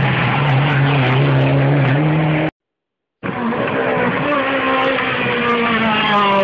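Hillclimb rally car engines under hard throttle through a hairpin. One car's engine runs hard, then stops dead for a moment about two and a half seconds in. Another car's engine then comes in, its pitch climbing and swinging up and down near the end as it revs through the bend.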